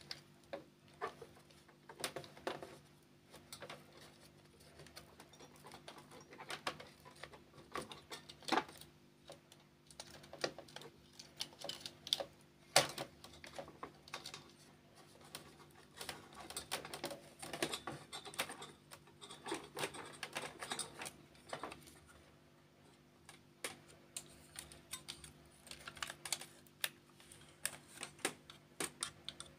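Irregular light clicks, taps and rattles of plastic and metal parts as a laser printer's fuser assembly is handled and worked apart by hand, over a steady low hum.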